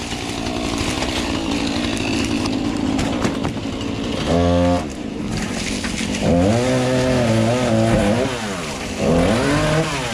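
Fire hose spraying water onto charred wooden shed walls and debris, a steady hissing rush. A small engine revs briefly about four and a half seconds in, then revs up, holds and falls off twice more from about six seconds in.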